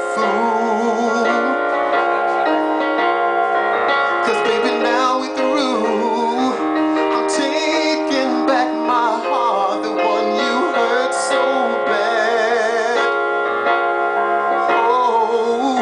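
A man singing live with vibrato on his held notes, accompanying himself on an electronic keyboard set to a piano sound, playing sustained chords.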